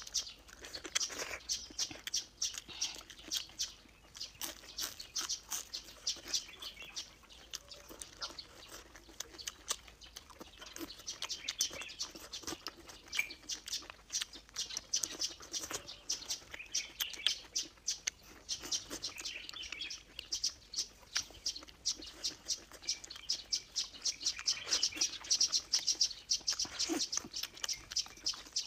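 Close-miked chewing of crisp stir-fried vegetables, with many quick, sharp crunches and wet mouth clicks running on without a break.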